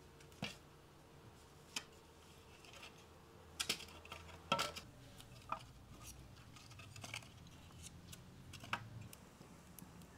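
Split firewood sticks knocking against each other and the brick as they are laid into a wood stove's firebox: scattered light wooden clacks, the loudest about four and a half seconds in.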